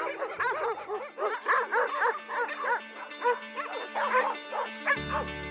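Dogs barking and yelping in many short, overlapping calls over steady background music.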